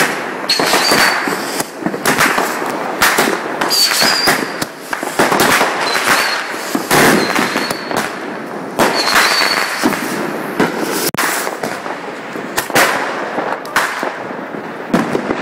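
'Hooligan' multi-shot consumer firework going off: a rapid run of launch pops, bangs and crackling star bursts, about one every second, with short high whistles among them.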